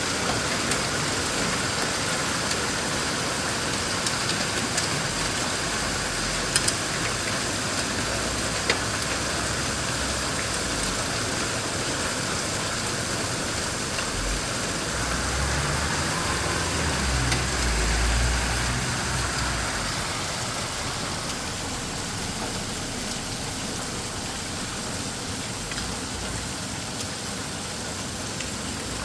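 Heavy rain mixed with small hail falling steadily, with a few sharp ticks of hailstones striking. A low rumble swells and fades about halfway through.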